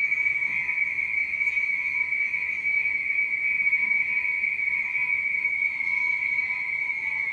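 A steady, high-pitched whistle-like tone that holds without a break or change in pitch.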